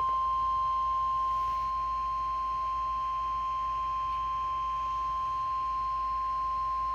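NOAA Weather Radio warning alarm tone (about 1050 Hz) from a Midland WR-120 weather radio. It is one steady, unbroken high beep, the alert that a warning broadcast, here a Severe Thunderstorm Warning, is about to follow. A faint receiver hiss sits under it.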